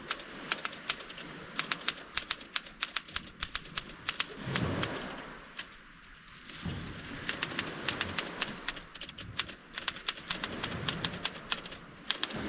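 Vintage Underwood typewriter being typed on: rapid, irregular key strikes clacking in two runs, with a pause of about three seconds in the middle.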